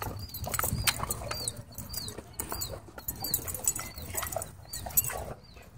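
A German Shorthaired Pointer running and wheeling on grass: quick scuffling footfalls and rustles. Behind them a high chirp falls in pitch and repeats about twice a second.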